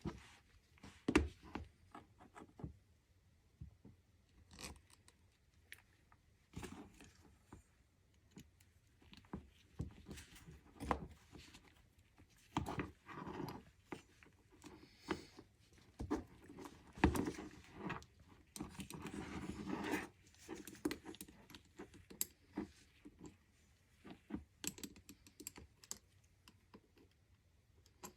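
Scattered clicks, knocks and light scrapes of tools and bike parts being handled, with a longer stretch of scraping about two-thirds of the way in.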